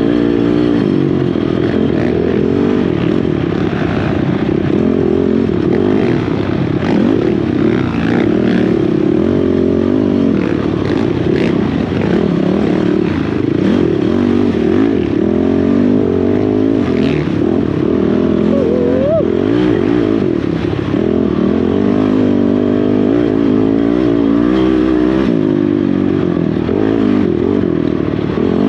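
Honda TRX450R race quad's single-cylinder four-stroke engine, revving up and down continuously as it is ridden hard along a trail, with some rattling from the machine over rough ground.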